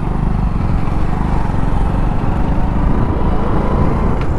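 Motorcycle engine running steadily at cruising speed, heard close up from the rider's seat.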